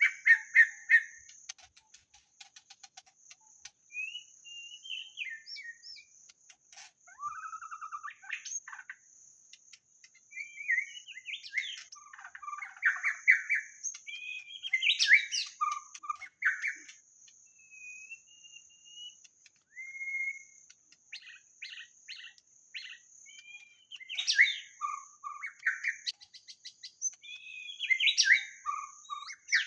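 White-rumped shama singing a long run of varied whistled and chattering phrases, with short pauses between them, over a steady faint high-pitched hum.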